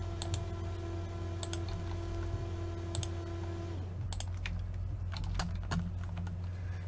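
Computer keyboard typing and clicking: scattered short sharp clicks, irregular, over a steady low hum. A steady tone underneath stops about four seconds in.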